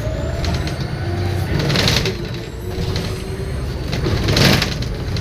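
Volvo B7RLE bus's straight-six diesel running with a high turbo whistle that rises just after the start and then holds, over a low engine rumble and a whining ZF automatic gearbox. Two short hissing bursts come about 2 and 4.5 seconds in.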